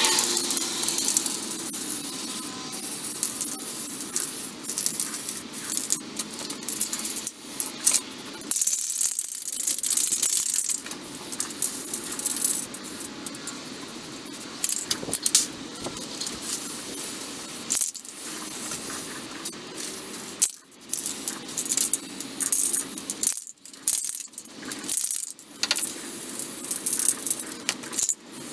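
Aerosol spray-paint can hissing in long passes with short breaks between them, and the can's mixing ball rattling.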